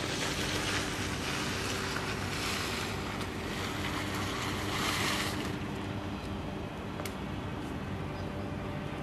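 Wind rushing on the microphone, easing off about five seconds in, over a steady low mechanical hum.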